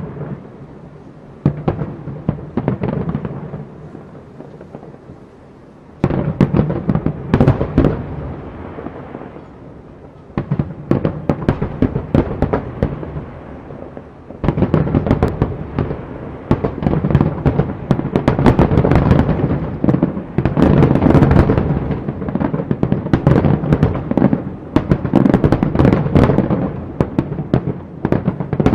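Aerial fireworks display: repeated booming shell bursts and crackling, with rumbling echoes between them. It comes in waves, quieter in the first few seconds and building to a dense, near-continuous barrage in the second half.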